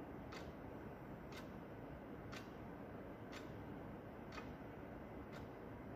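Quartz wall clock's second hand ticking, one sharp tick each second, six in all, over a low steady background hiss.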